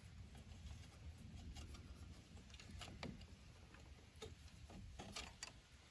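Faint, scattered clicks of a zip tie being pulled tight through its ratchet lock around a car's coil spring and spring booster.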